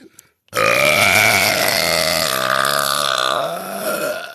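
A woman's single long, loud belch, starting about half a second in and lasting about four seconds. Its low pitch wavers and it fades toward the end.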